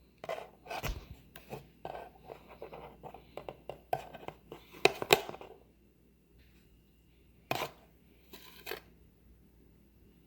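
A measuring spoon scooping baking powder and tapping into a mixing bowl: a quick run of small scrapes and clicks for about six seconds, then two short knocks.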